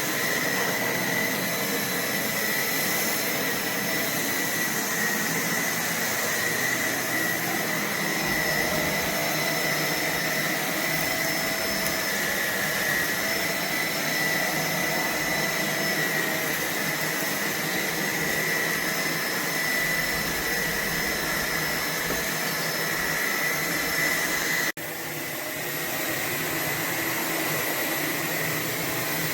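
A Roborock H60 Ultra cordless stick vacuum running steadily: a rushing airflow with a high whine. About 25 seconds in it drops out for a split second, then carries on a little quieter.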